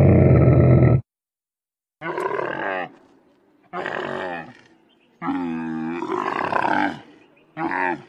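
Camel-like animal calls used as the sound effect for the extinct Camelus thomasi: a long call that stops about a second in, then three more calls with short gaps between them, and the start of another just before the end.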